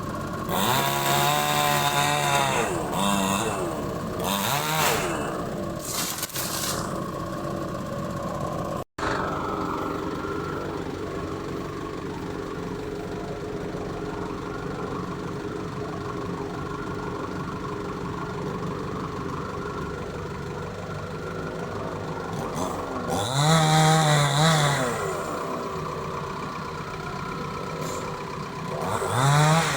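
Chainsaw revving in several bursts, its pitch sweeping up and back down each time, over a steady engine drone.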